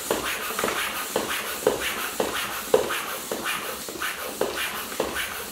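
Park Tool floor pump worked in quick, even strokes, about two a second, each a rushing puff of air. It is pumping up a new tubeless tyre to seat its beads on the rim with a hand pump alone.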